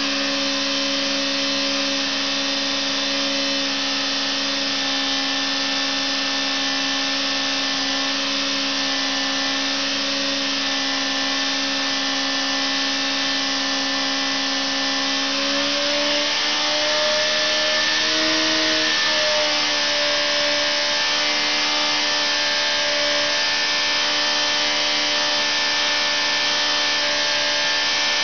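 Engine running steadily on a dynamometer test bed, a steady hum over a hiss. About halfway through its speed rises a little, peaks briefly and settles slightly higher than before.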